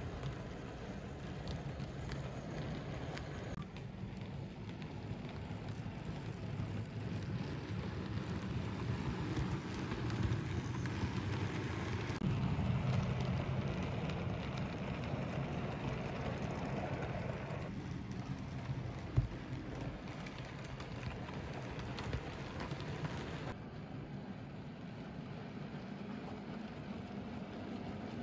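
Model train running on the layout track: a steady rumble and rattle from the wheels of the model GM 141-class diesel locomotive and its container wagons, rising and falling as the train passes, with one sharp click about 19 seconds in.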